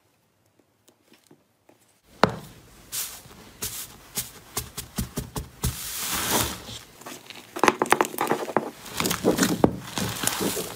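Slime being handled, pressed and stretched, giving a dense, irregular run of sticky clicks and crackles. It starts with a sharp click about two seconds in, after near silence.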